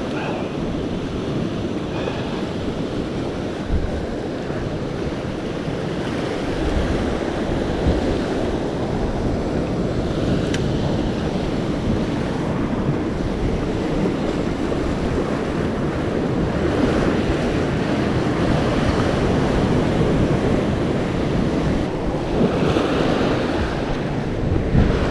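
Sea surf washing and breaking over a rocky shoreline, a steady rushing noise, with wind buffeting the microphone.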